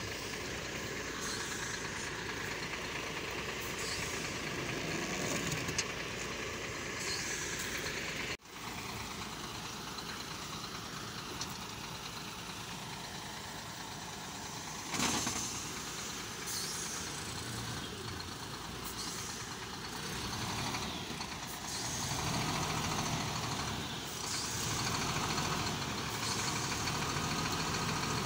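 Diesel engine of a MAN dump truck running at idle, steady throughout, with its low hum growing stronger in the last few seconds.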